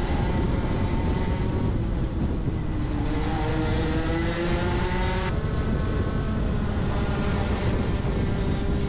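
Rotax Max 125cc single-cylinder two-stroke kart engine running at race speed, heard from on board, its pitch climbing slowly for about five seconds before changing abruptly.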